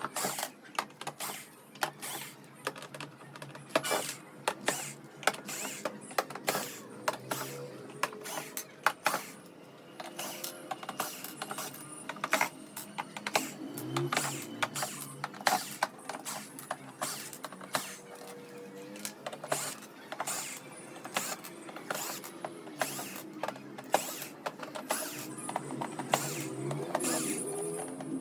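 Roland XP-30 keyboard being taken apart by hand: screws worked out of its case, with a steady run of irregular clicks, taps and rattles of screws, tools and plastic panels.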